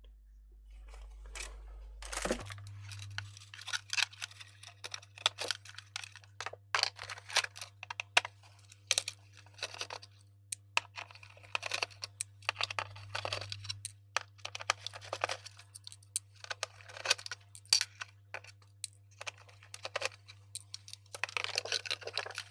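Plastic housing and internal parts of a Revitive machine being handled during a teardown: irregular small clicks, taps and rustles. A low steady hum comes in about two seconds in.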